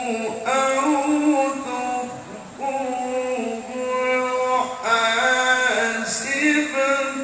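A male qori chanting Qur'an recitation in the melodic tilawah style, holding long high notes with ornamented turns, amplified through a PA system. There is a short breath pause about two seconds in.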